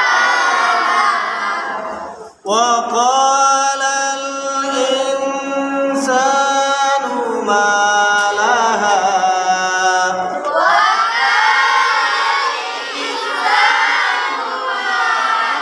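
Melodic Quran recitation in call-and-response. A group of voices, children by PANN's hearing, recites a verse back in unison at the start and again from about two-thirds of the way in. Between them a single man's voice chants the next phrase alone into a microphone, with long held notes.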